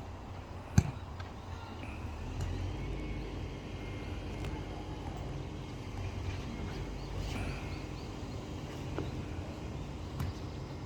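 Steady low outdoor rumble with one sharp thud about a second in, a football being kicked.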